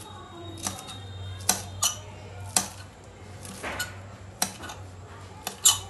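Kitchen knife chopping fresh coriander leaves on a stone countertop: about eight sharp, unevenly spaced knocks of the blade striking the stone.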